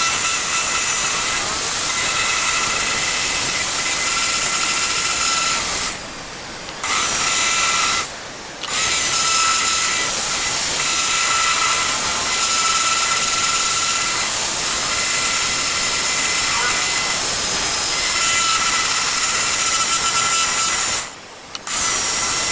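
A power tool running steadily with a whine, stopping briefly three times: about six seconds in, about eight seconds in, and near the end.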